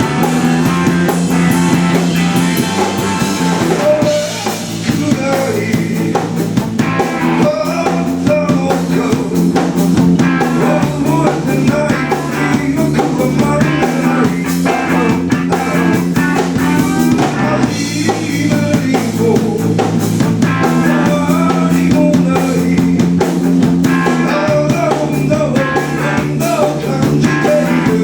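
Rock band playing live: drum kit and guitar over sustained low bass notes, with a melodic line on top.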